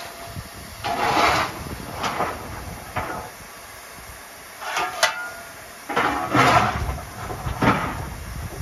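GWR Manor-class steam locomotive 7828 Odney Manor standing at the platform, giving a run of short noisy bursts roughly one a second, some with a ringing metallic edge, over a low steady background.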